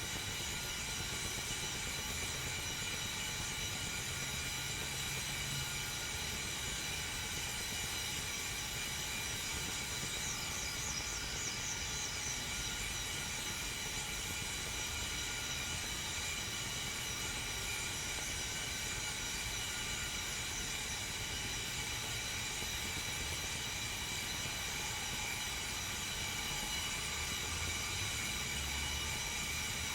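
Whistling tea kettle heating water: a steady hiss with faint high steady tones running through it. The water is still heating and the whistle has not yet started.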